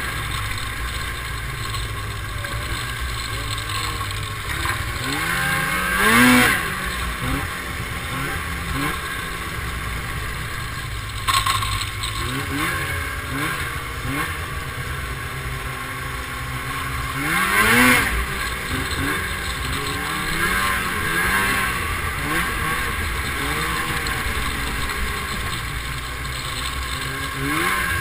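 Snowmobile engine running along a trail, its pitch rising and falling with the throttle, with two louder revs about 6 and 18 seconds in. A short sharp knock sounds around 11 seconds in.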